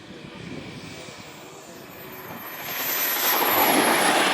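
Model turbine jet passing the microphone: the jet noise swells to its loudest near the end, and a thin, very high turbine whine falls in pitch as it goes by.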